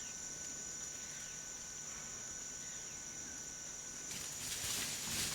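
Tropical forest ambience dominated by a steady high-pitched insect drone, with a few faint short calls. A rustling hiss rises about four seconds in.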